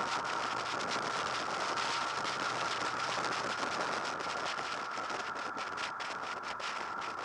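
Wind rushing over the microphone of a camera on a moving Honda VFR800 VTEC motorcycle, with the bike's V4 engine faint underneath and a steady high whine.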